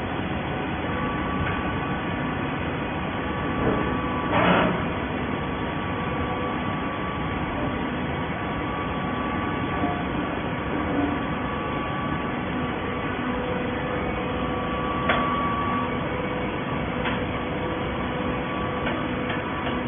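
Hydraulic baling machine running: a steady mechanical hum and noise with a few faint steady tones, and a brief knock about four and a half seconds in and another about fifteen seconds in.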